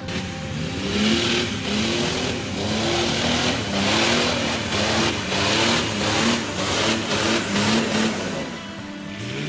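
An off-road 4x4's engine revving up and down in repeated quick bursts as it works through deep ruts. Each burst comes with a rough hiss.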